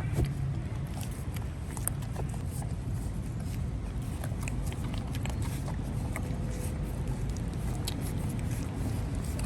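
Puppies lapping and slurping milk, a scatter of small wet clicks over a steady low rumble.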